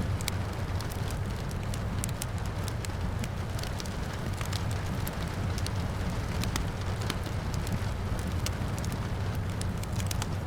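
Wood fire crackling, with many sharp irregular pops over a steady low rumble, and rain falling steadily in the background.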